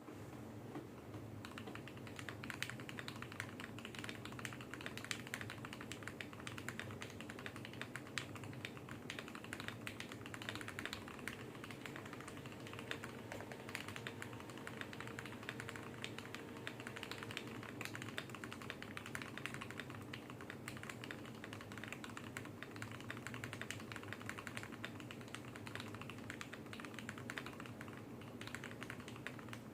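Continuous fast typing on a custom 65% mechanical keyboard with lubed and filmed Tecsee Carrot linear switches on a brass plate in an aluminium Tofu65 case: a dense run of keystroke clacks. A faint steady hum sits underneath.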